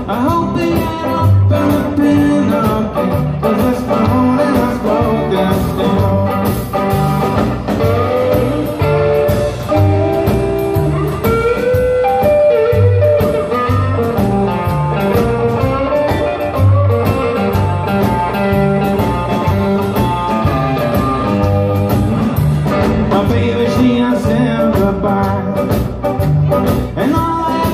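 Live band of upright bass, electric guitar and drum kit playing a blues and rock-and-roll style song, with a steady walking bass pulse under the guitar.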